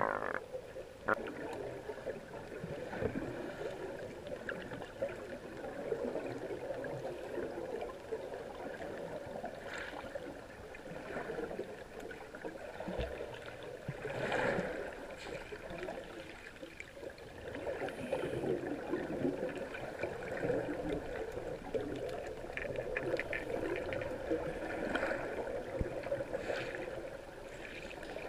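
Muffled water noise picked up by a camera underwater: a fluctuating rush and gurgle, with a few brief splashy bursts.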